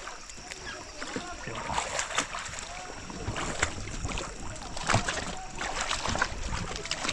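Fast-flowing river water rushing and splashing around an inflatable raft, with irregular sharp splashes.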